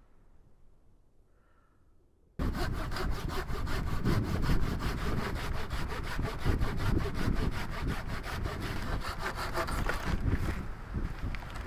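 Hand saw cutting through wood in quick, even strokes, starting abruptly about two and a half seconds in after near-quiet.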